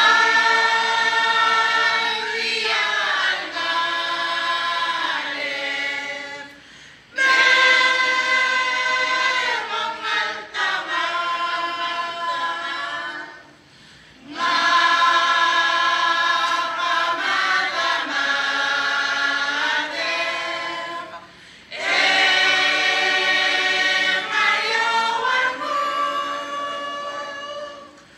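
Mixed choir of men and women singing together in four long phrases of about seven seconds each, with short breaks for breath between them.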